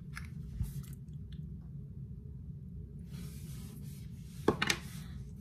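Soft lip and mouth noises, small wet smacks and rubbing, with a pair of sharper smacks or clicks near the end, over a steady low hum.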